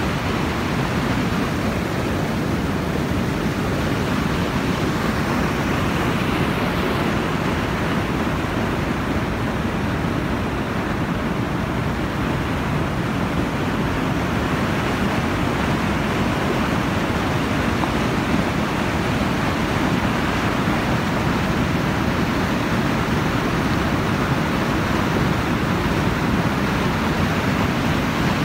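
Heavy floodwater rushing through the gates of a river headworks and churning below the weir: a loud, steady, unbroken rush.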